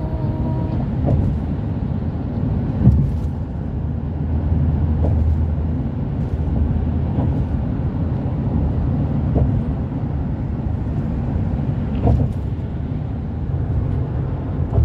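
Steady low rumble with a few faint short knocks.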